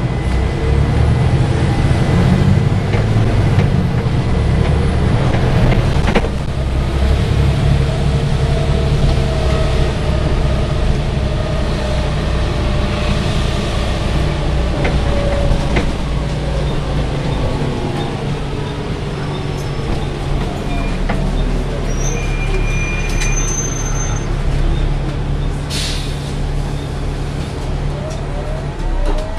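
Volvo B7TL double-decker bus's engine and cooling fan running steadily, heard from on board, with a slowly falling whine in the middle. A short air hiss comes about four seconds before the end.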